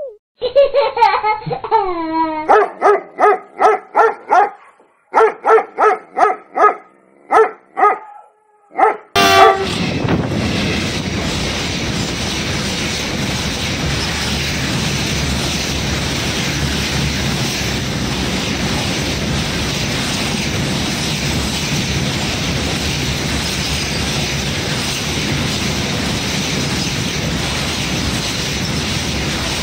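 A puppy whines and then yelps in a quick string of short, pitched calls. About nine seconds in, a long container freight train's wagons start running past, a loud, steady noise of wheels on rails that keeps on without a break.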